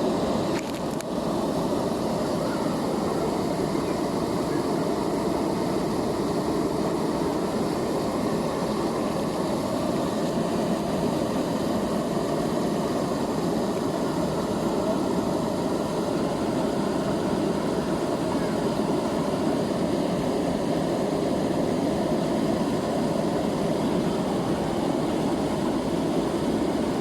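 River water flowing: a steady rushing noise, heaviest in the low and middle range.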